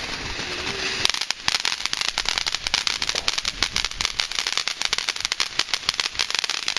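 Firework going off: a steady spraying hiss, then from about a second in a rapid, dense run of crackling pops that keeps going.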